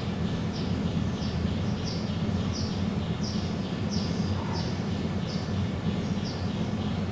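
A bird chirps over and over, short high falling notes about every two-thirds of a second, over a steady low hum.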